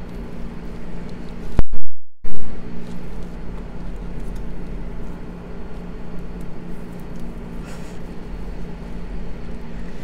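Steady low hum over a constant background noise, cut to silence for about half a second near two seconds in.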